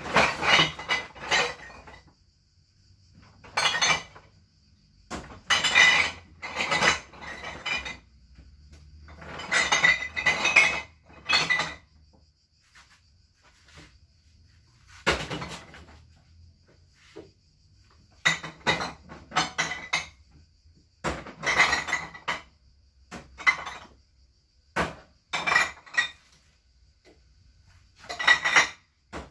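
Hard, metallic objects clinking and clattering as they are handled, in bursts of a second or two with short pauses between.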